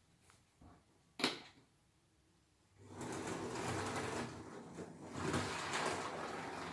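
A single sharp click about a second in, then a Hornby model train's small electric motor starts about three seconds in and runs steadily along the track with a whirr.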